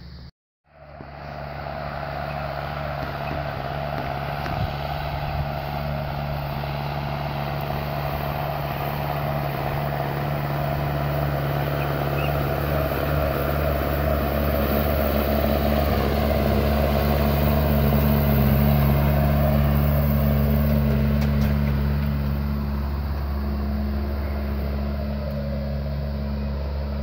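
John Deere tractor's diesel engine running steadily under load as it pulls a disc harrow through the soil. The sound starts after a moment of silence, grows louder to a peak about two-thirds of the way in, and then eases off.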